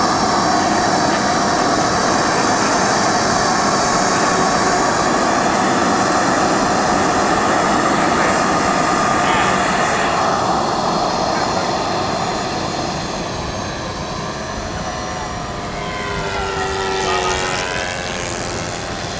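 Small ATJ gas turbine engine of a radio-controlled model jet running, a steady jet rush with a high-pitched whine that creeps up in pitch over the first few seconds. The sound eases somewhat after about ten seconds, and near the end the tone wavers and sweeps.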